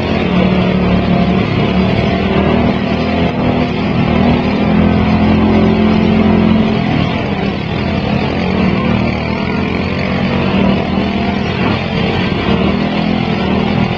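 Small engines of riding lawn mowers running in a demolition derby, a steady engine drone that swells for a few seconds in the middle.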